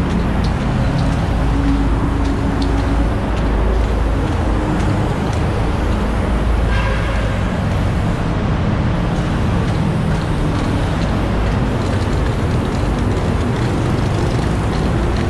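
Steady road-traffic rumble from passing vehicles, with a short higher-pitched sound about seven seconds in.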